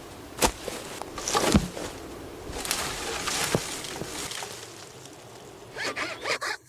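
Scattered knocks and rustling of work in wood, then a handsaw starts cutting wood near the end with quick, regular rasping strokes.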